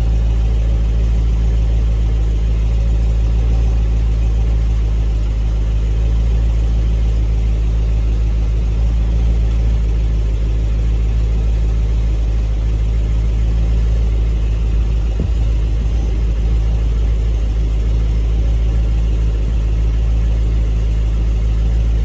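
Engine idling, a loud, steady low drone.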